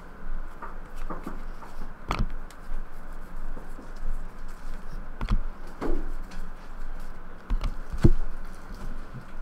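Hockey trading cards being handled: a stack of cards flipped through one after another and stacks set down on a tabletop, giving irregular light clicks and taps with a few sharper knocks.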